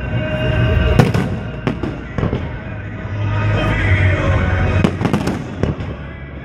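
Aerial firework shells bursting with sharp bangs: one about a second in, a couple more soon after, and a quick cluster of several around five seconds in.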